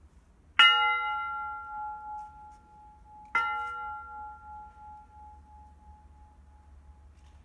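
A bell hung in a wooden stand struck twice, about three seconds apart, each strike ringing with several tones that fade slowly, the lowest tone lingering long after the higher ones die away.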